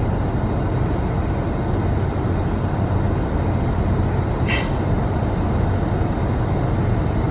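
Mercedes-Benz car driving, a steady drone of engine and road noise, its repaired exhaust no longer making its earlier muffler noise. A brief high squeak about four and a half seconds in.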